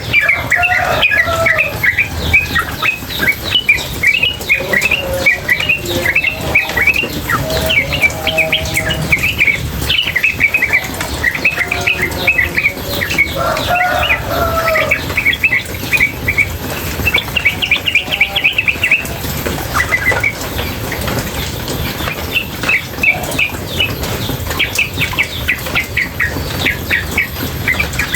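Female yellow-vented bulbul (trucukan) calling in a long run of rapid, chattering chirps without a break, over a steady sound of running water.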